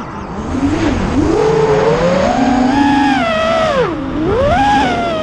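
FPV quadcopter's brushless motors whining, the pitch rising over the first three seconds, dropping sharply about four seconds in, rising again and falling away near the end as the throttle changes, with wind buffeting on the onboard camera's microphone.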